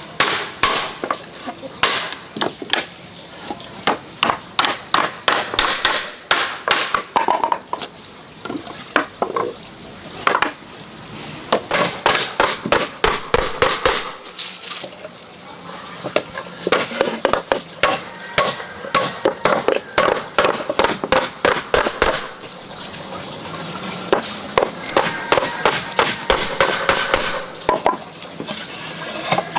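Hammer blows on wood, struck in quick runs with short pauses between, as a wooden stool is knocked together.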